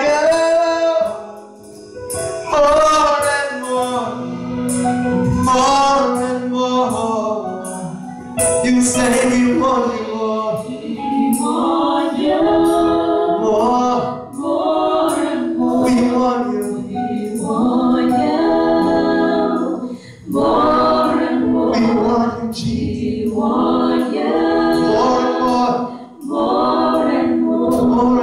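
Several women singing a gospel song together into microphones, in phrases with short breaks between them.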